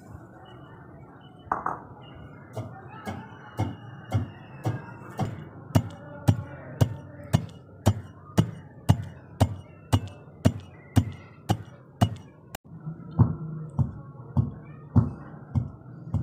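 Steel pestle pounding dry spices in a steel mortar: regular metallic clinking strikes about twice a second, briefly broken off once near the end before the strikes resume.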